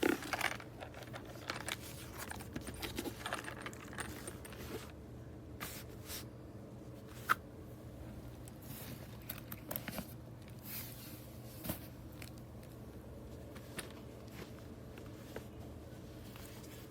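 Scattered light clicks, taps and rustles of small objects being handled, with a sharper knock at the very start and single clicks about seven and twelve seconds in, over a faint steady low hum.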